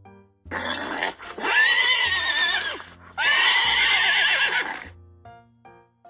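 A horse whinnying: two long, shaky, quavering calls about a second and a half each, with light background music underneath.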